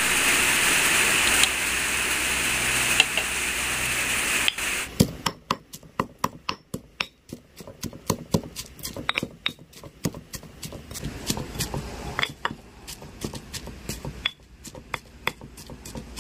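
A steady hiss for the first few seconds, cutting off suddenly. Then a stone pestle pounding in a granite mortar: quick, irregular knocks, about three a second, as chilies, garlic and shallots are crushed for a chili paste.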